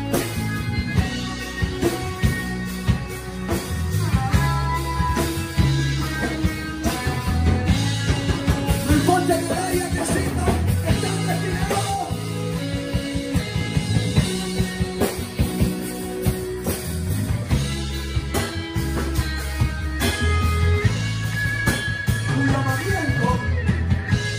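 Live worship band playing an upbeat song, with drum kit and bass guitar driving a steady beat, keyboard, and a voice singing at times.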